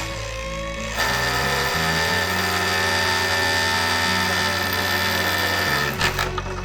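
A power drill runs steadily for about five seconds, starting a second in and stopping near the end, then a few sharp knocks. Background music plays under it.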